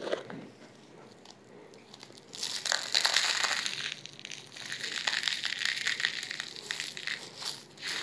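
Rock salt crystals crunching and crackling in a plastic container as it is opened and scooped from, in two stretches of dense crackle starting a couple of seconds in, with a short break between.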